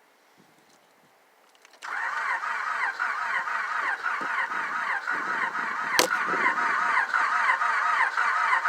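2000 Honda Accord LX engine turning over on the starter without catching, a fast, rhythmic, chirping whine that starts suddenly about two seconds in. There is one sharp click about six seconds in. The owner suspects a timing problem.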